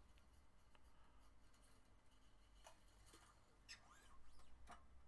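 Faint scraping and light ticking of a steel guitar string being threaded and handled while a Les Paul is restrung, with a few sharper ticks near the end.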